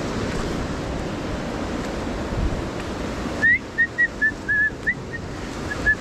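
Steady rushing noise of the river, easing a little about halfway through. Then about ten short, clear whistled notes, each a single pitch, are the loudest sounds.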